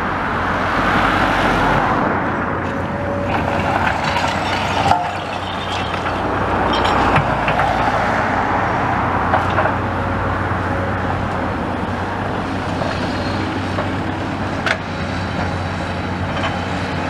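Road traffic going by close at hand: cars and a van passing along the street over a steady low engine hum, with a couple of short knocks.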